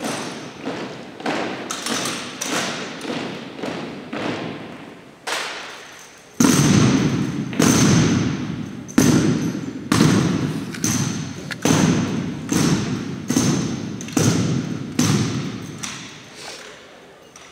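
Exhibition rifle drill: a rhythmic run of sharp thuds and slaps from the drill team's rifles and boots striking the hardwood gym floor, about two a second, echoing in the hall. The impacts grow much louder from about six and a half seconds in and fade near the end.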